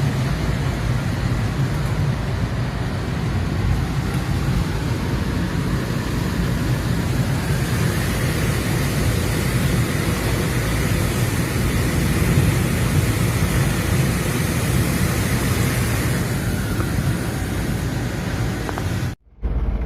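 Steady rushing, rumbling noise with no distinct events, cut off abruptly about a second before the end.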